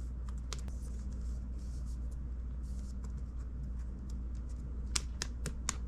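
Trading cards and booster packs being handled: scattered soft clicks and taps over a steady low hum, with a few sharper ticks near the end.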